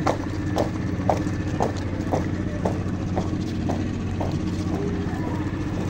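Boots of a marching column striking the pavement in step, about two footfalls a second and growing fainter toward the end, over the steady low hum of an idling vehicle engine.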